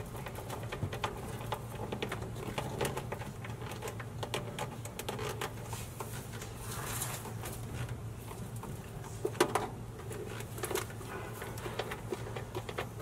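Hands handling cables and a plastic D-sub connector: scattered small clicks and rustles, with a sharper pair of clicks about nine seconds in, over a steady low hum.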